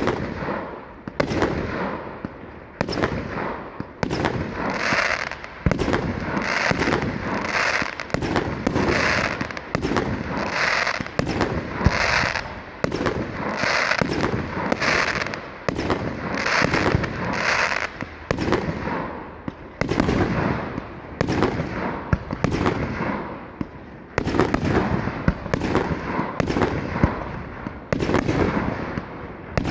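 Fireworks display: aerial shells bursting in quick succession, about one sharp bang a second, with hissing noise between the bangs.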